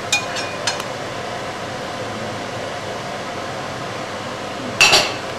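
Steady fan-like rushing noise, with a couple of metal clinks as a spoon scrapes fried vegetables from a frying pan into a steel soup pot, and a louder clatter of cookware near the end.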